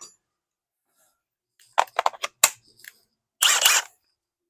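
Several sharp clicks and knocks of tools and metal hardware being handled, then a short rasping burst about half a second long near the end, during work to take out an old deck ledger fastener.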